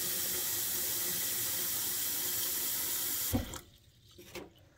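Kitchen tap running into a small stainless steel bowl in a steel sink, a steady splashing rush. A little over three seconds in the water is shut off abruptly with a short knock, then a few faint clinks as the bowl is handled.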